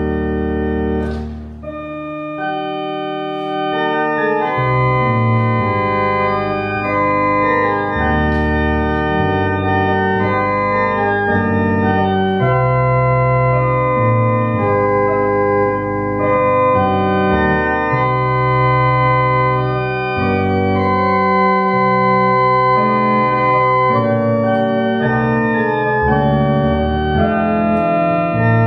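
Church organ playing a hymn in sustained chords that move on about once a second, with a brief drop in the bass about two seconds in before the next phrase.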